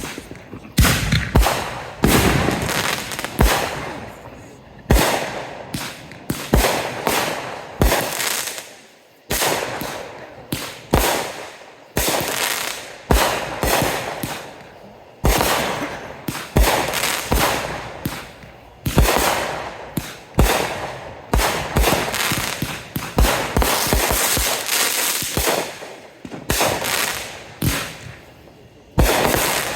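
Fireworks going off in a rapid series of sharp bangs, roughly one to two a second, each trailing off in a crackling, rumbling tail, with a brief lull about nine seconds in.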